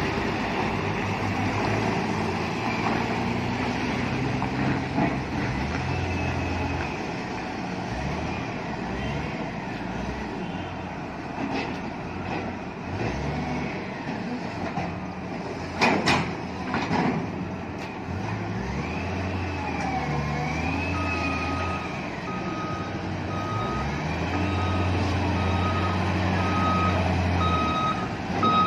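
Heavy diesel engines of a Hyster reach stacker and a truck running and revving, with a few sharp metallic knocks just past the middle. About three-quarters of the way in, a reversing alarm starts beeping repeatedly.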